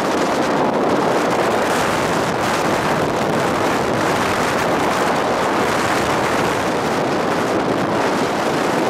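Steady, loud wind rush over the microphone of a camera on a moving motorcycle, with no clear engine note standing out.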